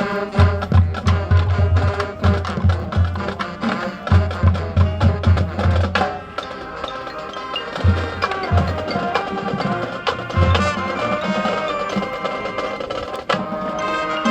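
High school marching band playing its competition show: the drumline's bass drums and percussion drive a fast beat for the first half, then a softer passage of held notes follows, and the full band comes back in loudly near the end.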